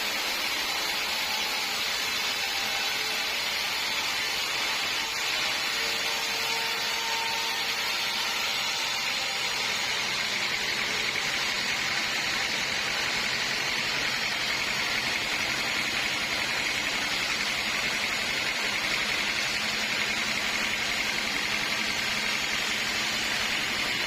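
Sawmill running with a steady, continuous machine noise and a faint high whine that grows a little stronger about halfway through.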